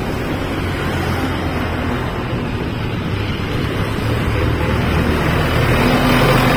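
Street traffic passing close by, with the steady low hum of a heavy vehicle's engine; it grows louder near the end.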